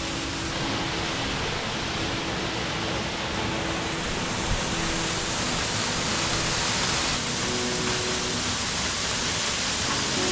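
Waterfall pouring: a steady, even rush of falling water that swells slightly about halfway through.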